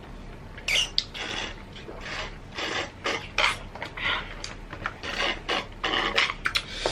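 Close-up chewing of crisp food: a run of irregular, rasping crunches, a few every second.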